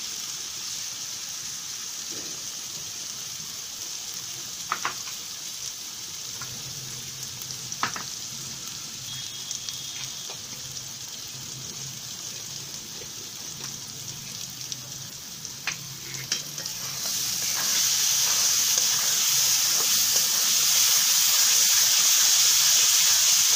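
Masala paste sizzling in mustard oil in a metal kadhai, with a few sharp clicks of a metal spatula against the pan. About three-quarters of the way through, the paste is stirred and spread and the sizzling becomes clearly louder. The masala is at the bhuna stage, fried down until the oil separates.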